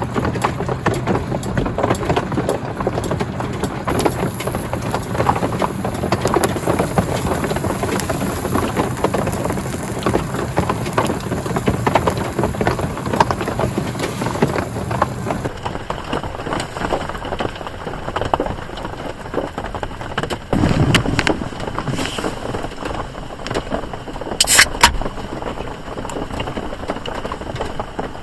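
Rain pattering steadily on a tarp, with a few sharp clicks and a low knock in the second half. The sound changes abruptly about halfway through.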